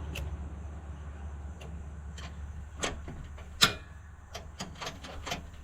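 Irregular sharp clicks and knocks, about nine of them, the loudest about three and a half seconds in, over a steady low hum.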